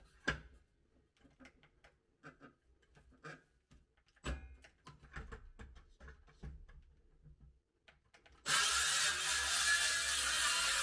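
Light knocks and clicks of a cordless circular saw being handled and set on a wooden stair tread. About eight seconds in, the saw starts suddenly and runs loudly and steadily as it cuts into the wood.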